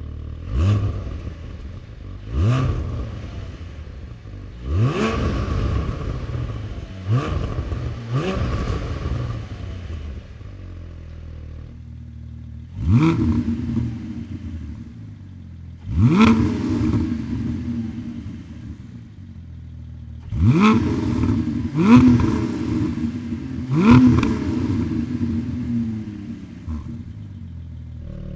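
Porsche 718 Cayman GT4's 4.0-litre flat-six idling and being revved in about ten sharp throttle blips, each climbing in pitch and falling back to idle. The idle changes tone about twelve seconds in.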